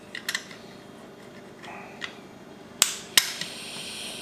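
Clicks and knocks from the parts of an opened Ryobi 18V battery pack as a retaining clip is pushed back into the housing: light clicks, then two sharp snaps close together near the end, followed by a short scrape.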